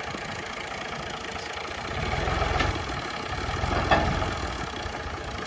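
Clayson 8080 combine harvester's engine running, its low throb growing louder twice, with two short sharp knocks in between.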